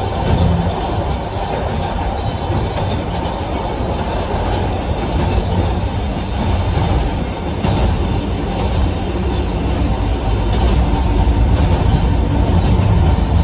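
Steady low rumble of a Sangi Railway Hokusei Line narrow-gauge electric car running, heard from inside the passenger car. There is an occasional faint click, and it grows a little louder over the last few seconds.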